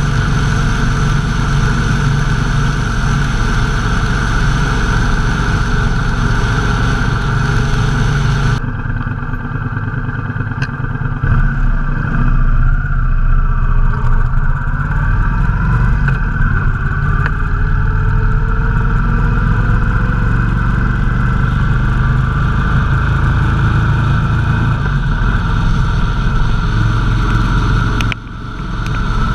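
Motorcycle engine running at road speed, its pitch rising and falling as it is ridden through curves. A steady hiss of wind and road noise rides over it for the first eight seconds or so, then stops abruptly.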